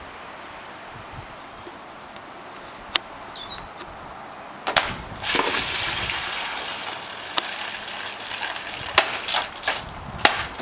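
Sword blades cutting through a water-filled plastic jug with a sharp crack about halfway through, then water gushing out and splashing onto the grass. Near the end come several more quick sharp cuts as another jug is struck, with more water splashing.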